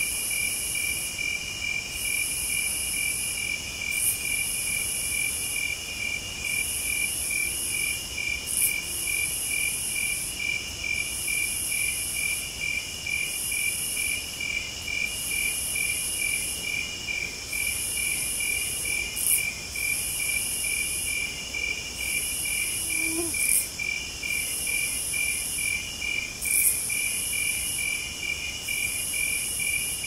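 Night meadow insect chorus: crickets chirping steadily at about two pulses a second over a continuous high trill, with a higher buzzing that comes in phrases of about a second and a half separated by short gaps.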